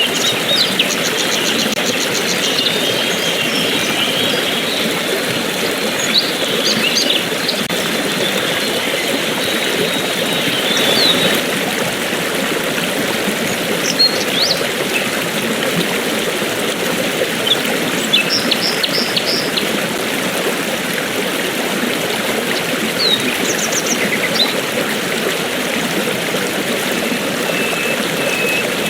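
Steady rush of a stream or small waterfall, with songbirds calling now and then over it: short chirps, quick trills and whistled notes.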